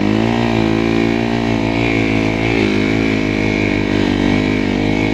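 Snow bike's engine running under a steady throttle while riding through snow, its pitch wavering slightly up and down.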